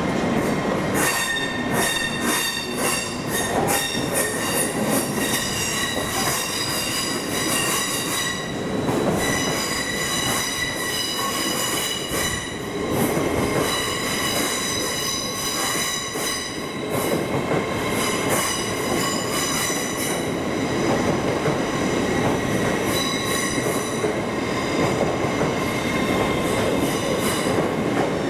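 A train moving slowly through the station with a high-pitched metallic squeal made of several steady tones, over a continuous rumble. There is quick clicking from the wheels over rail joints in the first several seconds and again near the end.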